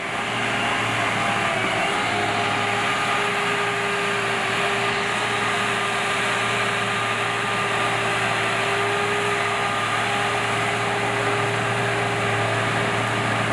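Heavy logging machine's engine running steadily at high revs, with a steady whine over a low hum.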